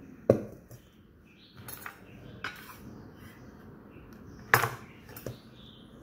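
Kitchen knives and utensils knocking on a wooden cutting board: a few sharp clatters, the loudest shortly after the start and another about four and a half seconds in, with lighter knocks between.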